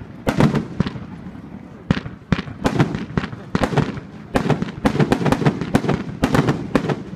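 Fireworks going off: many sharp bangs and cracks in quick, irregular succession, thickening into a dense volley in the second half.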